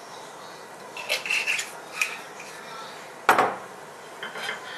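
Kitchen clatter of dishes: a few light clinks, then one loud knock with a short ring about three seconds in as a glass olive-oil bottle is set down on the stainless-steel counter, and a few small clicks near the end.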